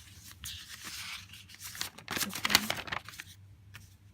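Paper rustling and sliding as the sheets of a paper prototype are handled and swapped, loudest about two to three seconds in, followed by a few light taps.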